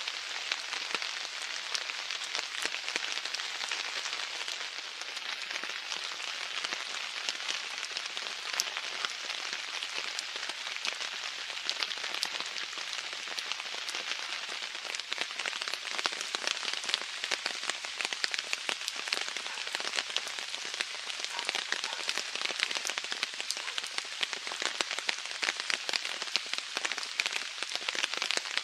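Steady rain falling on pond water and wet paving: an even hiss made up of many separate drop ticks, growing a little heavier about halfway through.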